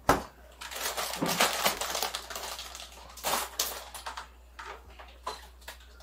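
A metal scoop scraping and clinking against a large pan as breakfast-burrito filling is scooped out. A sharp knock opens it, busy clattering and scraping follows, and a few lighter knocks and clicks come near the end.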